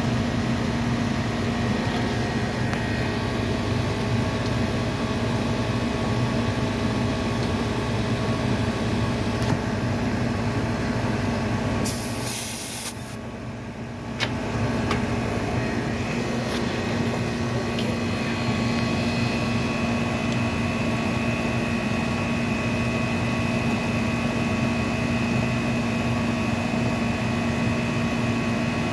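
Running air-conditioning condensing unit humming steadily. About twelve seconds in there is a short burst of high-pitched hiss, and the hum dips for a moment just after it.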